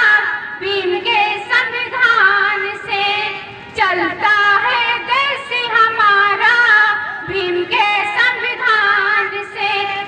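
Girls singing a Hindi song into microphones, in long held melodic lines, with a short break a little before four seconds in.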